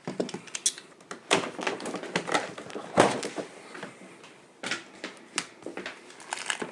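Knocks, taps and scraping on a large cardboard box as it is cut open with a utility knife, the loudest knock about three seconds in.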